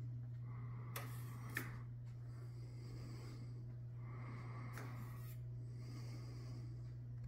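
A steady low hum, with a few faint clicks: two about a second in and one near the middle.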